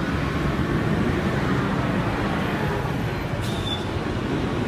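Steady street noise from a crowd of people on motorbikes with traffic, with a single short click about three and a half seconds in.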